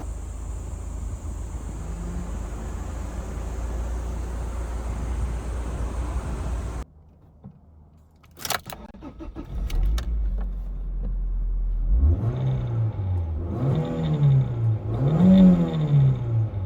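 Toyota Altezza RS200's 3S-GE four-cylinder engine idling steadily, then a short quiet gap with a sharp click. The engine idles again and is revved three times in succession, each rev rising and falling in pitch.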